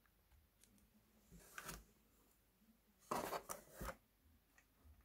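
Faint handling noise: a light rustle about a second and a half in, then a louder cluster of scrapes and knocks about three seconds in as a white plastic lamp is lifted out of its cardboard box.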